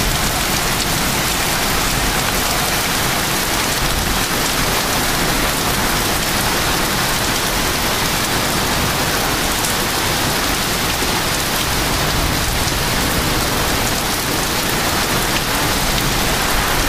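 Heavy thunderstorm rain pouring down in a steady, unbroken hiss.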